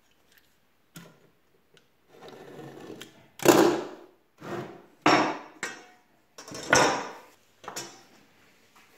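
Wood being handled on a workbench: a few light clicks, then a run of short scrapes and knocks, the loudest about three and a half seconds in.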